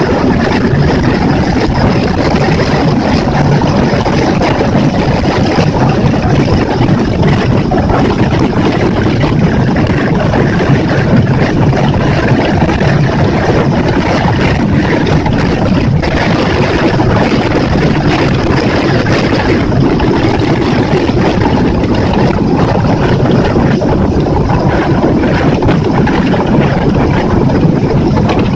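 Yamaha F60F 60 hp four-stroke outboard motor running steadily as the boat is under way, mixed with wind on the microphone and water rushing past the hull.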